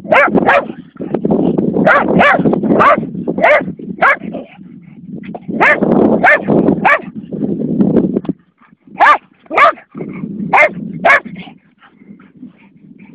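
A dog barking over and over, in quick runs of two to four short, sharp barks with brief breaks between the runs, and a rough low noise underneath between the barks.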